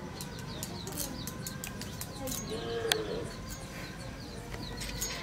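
Wild arum leaves being sliced on a boti's upright blade: a run of short crisp cuts. Small birds chirp throughout, and a low coo sounds about three seconds in.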